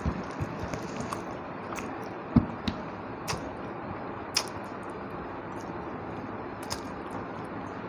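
Close-miked eating sounds from a person eating rice and fish curry: scattered sharp mouth and hand clicks and a few soft knocks over a steady hiss, the loudest knock about two and a half seconds in.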